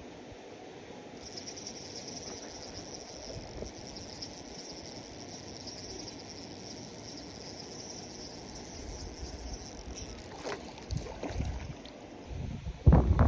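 Spinning reel being cranked: a steady high whirr that starts about a second in and stops after about nine seconds. A few louder thumps follow near the end.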